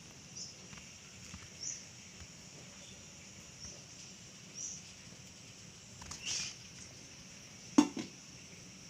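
Faint, short, high-pitched chirps recurring every second or so over a quiet background, with a few light clicks and one sharp knock near the end.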